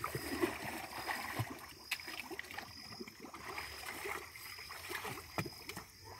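Shallow creek water splashing and sloshing irregularly, with a few sharp knocks, as a person wades and beats the water to drive small fish into a hand-held sieve.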